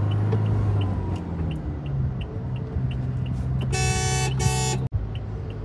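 Two quick blasts of a car horn about four seconds in, over the steady hum of the car's engine and tyres heard from inside the cabin. A light, even ticking runs underneath at about three ticks a second.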